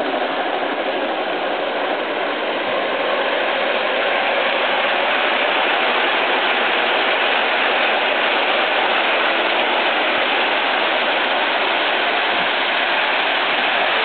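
Large-scale garden-railway model freight train rolling past, its cars' wheels running on the track in a steady, even rumble.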